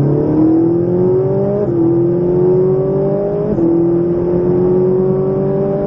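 Ferrari 458 Italia's naturally aspirated V8, heard from inside the cabin, accelerating hard: its note climbs steadily and drops sharply with a quick upshift about two seconds in and again near four seconds, then climbs again.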